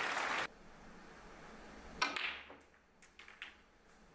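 Snooker audience applause that cuts off suddenly about half a second in. It gives way to a hushed arena with one sharp click about two seconds in and a few faint taps after it.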